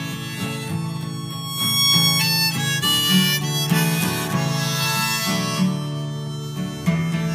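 Harmonica played in a neck rack, a melody of held and changing notes, over guitar accompaniment, live and unamplified.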